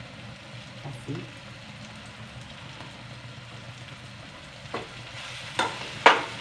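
Tomato-onion masala sizzling gently in a kadai. A perforated steel spatula then scrapes and knocks against the pan three times in the last second and a half, the last the loudest, as pieces of fried lauki kofta are stirred into the gravy.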